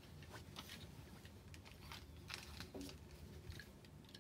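Very quiet, scattered small clicks and rustles of hands handling small objects and paper, with a slightly louder tick about two and a half seconds in.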